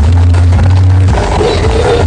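Very loud music blasting from large street sound systems in a sound-system battle, dominated by a heavy, booming bass.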